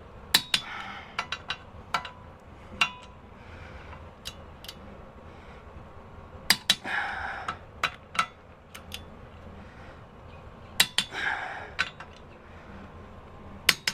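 Hand tools and metal hardware clinking and knocking on a workbench: a dozen or so sharp, separate metallic clicks, spread unevenly.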